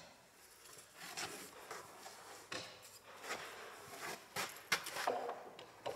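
Wooden kit panels and timber pieces being handled on a workbench: a scatter of light knocks and rubs, some sharper than others.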